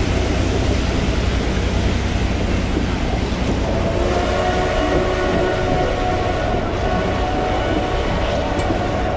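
Narrow-gauge wooden passenger coaches rolling past close by, a steady rumble of wheels and running gear on the track. A steady ringing tone joins about four seconds in.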